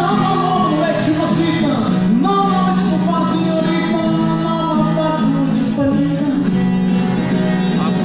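A man singing live into a stage microphone while strumming an acoustic guitar, the voice rising and falling over steady chords.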